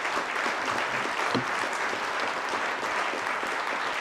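A large seated audience applauding steadily, a dense patter of many hands clapping.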